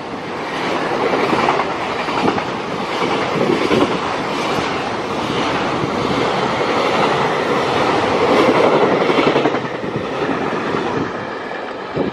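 Freight train's loaded container wagons rolling past at speed, wheels clattering rhythmically over the rail joints; the noise eases off near the end as the last wagon goes by.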